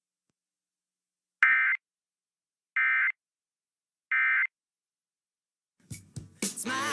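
Emergency Alert System end-of-message (EOM) data bursts: three short, identical buzzy digital warbles about a second and a half apart after dead air, signalling the end of the alert. Station audio with music cuts back in near the end.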